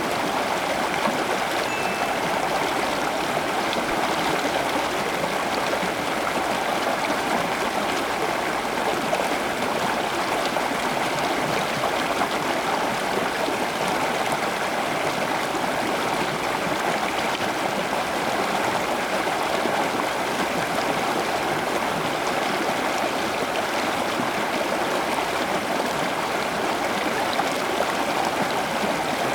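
Running water, a steady stream-like rush with no breaks or changes in level.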